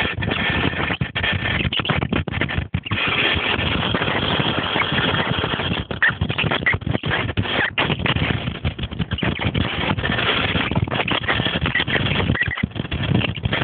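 Belt-driven machine running, a dense steady clatter of pulleys, belt and moving parts.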